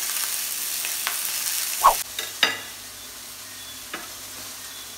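Beef burger patties sizzling in a hot, lightly greased frying pan, a steady hiss that cuts off suddenly about two seconds in. A few sharp clicks follow, the loudest just before the sizzle stops.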